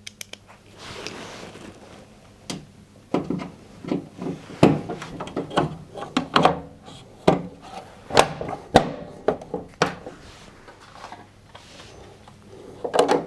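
Irregular knocks, clicks and thunks of a washing machine's kick plate and lower front panel being fitted and screwed into place.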